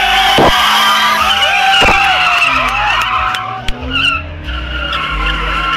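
A car drifting: its tyres squeal in long, wavering tones while the engine note keeps rising and falling.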